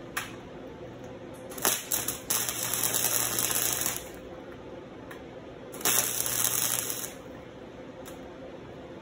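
Electric arc welding: steel chain links being tack-welded to a steel sheet, heard as two spells of crackling arc with a low hum beneath. The first starts with a short strike and runs about two seconds, and the second, about a second long, comes around the middle.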